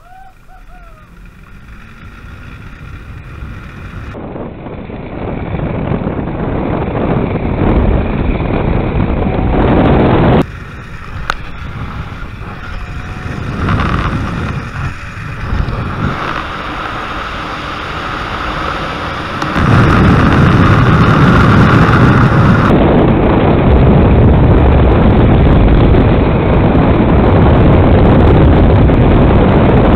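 Wind rushing over the camera's microphone on a fast zipline ride, building from quiet to loud and steady, with sudden drops and jumps in level where the footage is cut.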